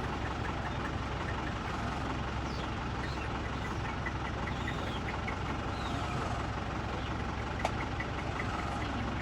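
Steady hum of a running vehicle engine, with faint high chirps over it.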